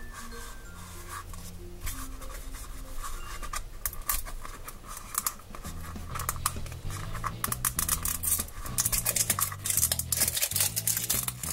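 Plastic shrink-wrap crinkling and crackling as it is picked at and torn off a Paw Patrol Mashems blind capsule. The crackle grows busier and louder over the last few seconds, over background music.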